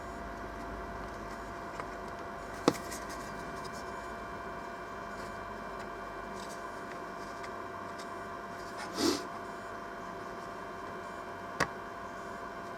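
Small parts of a plastic speaker housing being handled: two sharp clicks, near the start and near the end, and a brief rustle in between, over a steady faint hum.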